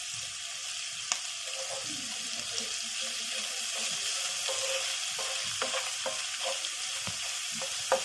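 Chopped onion sizzling in hot oil in a nonstick pan, with a wooden spatula stirring it and ticking against the pan, the ticks coming more often in the second half.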